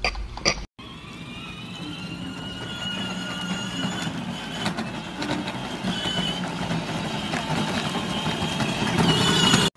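Children's electric ride-on toy Jeep driving over paving stones: a steady whine from its motor and gears, with the rumble of its plastic wheels, getting louder as it comes closer.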